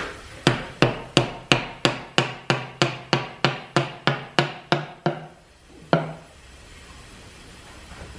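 A hand tool knocking repeatedly inside a cast-iron steam-engine cylinder casting: an even run of about fifteen sharp blows, roughly three a second, then a single last blow about a second later.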